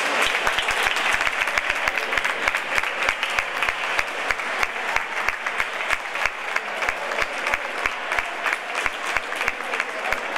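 Spectators applauding, a dense patter of hand claps over a steady hum of crowd voices, with some sharp claps close by standing out.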